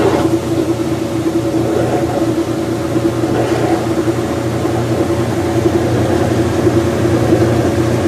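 Kenmore 80 series top-load washing machine spinning its empty tub on fast spin speed: a steady motor hum with a whir, getting a little louder in the second half.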